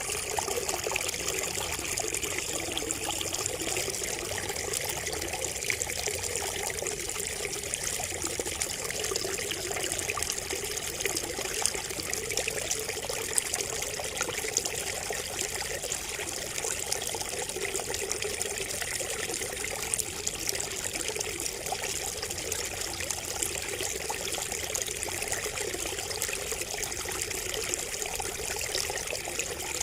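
Water trickling and splashing steadily from a bamboo spout, with small scattered drips and splashes over it.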